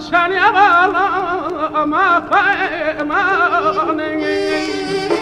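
Azerbaijani ashiq music: a man's voice sings a wavering, heavily ornamented line over a steady saz drone, and about four seconds in the voice stops and the saz carries on alone with a bright, busy strummed sound.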